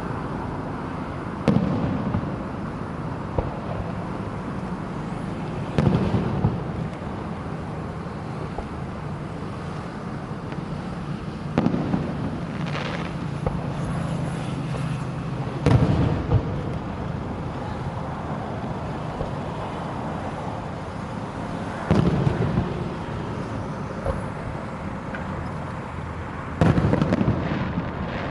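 Fireworks going off at a funeral: six separate bangs, each followed by a brief crackling tail, spaced about four to six seconds apart.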